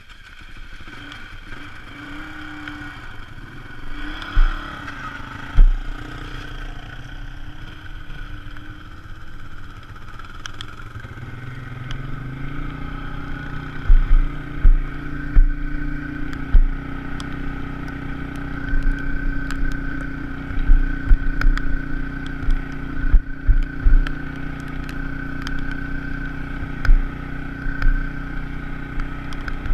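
Polaris RZR side-by-side's engine running as it drives a dirt trail. Its pitch climbs about twelve seconds in and then holds higher. From there on it is broken by frequent low thumps and clatter.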